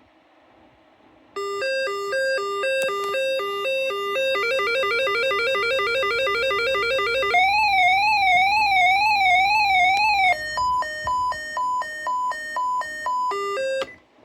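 Whistler WS1025 scanner sounding its alert test, a run of electronic alarm tones. A slow hi-lo two-tone starts about a second and a half in and speeds up to a fast trill, then becomes a warbling siren-like tone, then a higher hi-lo beeping. It cuts off abruptly near the end.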